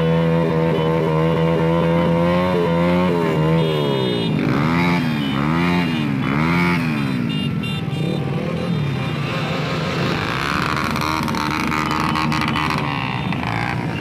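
Motorcycle engine held at a steady high rev, then blipped up and down three times in quick succession, followed by more traffic engine noise.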